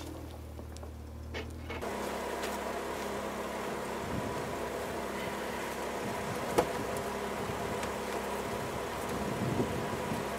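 Jeep Wrangler JK's engine running steadily. The sound changes character about two seconds in, and there is one sharp click near the middle.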